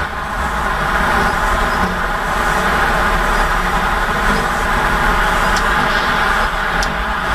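Steady road-traffic noise with a low engine rumble, like a truck or bus running, swelling a little in the middle. Two faint ticks come near the end.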